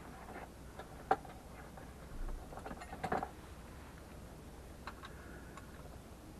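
Scattered light metallic clicks and clinks of a wrench working the oil pan drain bolt: a sharp click about a second in, a cluster of clinks near three seconds, and a few faint ticks near five seconds.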